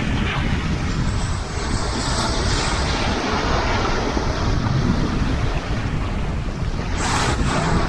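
Sea waves washing on the shore, with wind buffeting the microphone as a heavy low rumble. There is a brighter splash of a breaking wave about seven seconds in.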